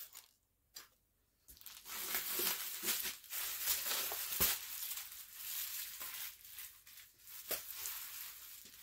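Packaging crinkling and rustling as it is handled and torn open by hand. The crinkling starts about a second and a half in and runs on with a few sharper snaps.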